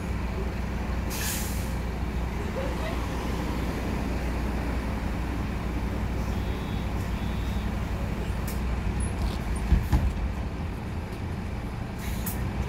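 MAN Lion's City city bus engine idling steadily at a stop, with a short hiss of released compressed air about a second in and another near the end as the bus readies to pull away. A couple of low thumps about ten seconds in.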